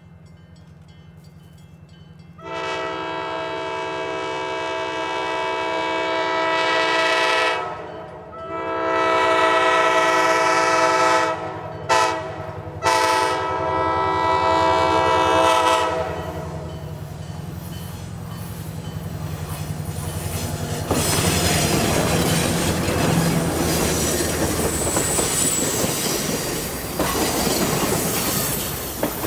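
A Nathan K5LA five-chime air horn on the lead EMD FP9A sounds the grade-crossing signal: long, long, short, long, over the low rumble of the approaching diesel locomotives. About twenty seconds in, the train passes close by, with its wheels clattering over the rail and a faint high wheel squeal.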